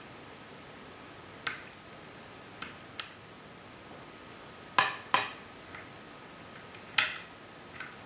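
Lock pick and tension wrench working in a Fichet 484 H ten-wafer switch lock: sharp metallic clicks at irregular intervals, about seven in all. The three loudest come around the middle and near the end, each with a short ring.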